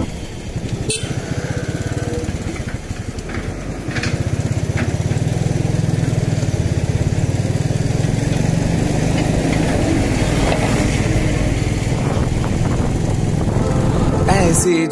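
Motorcycle engine running at a steady road speed, heard from the rider's seat, getting a little louder about four seconds in.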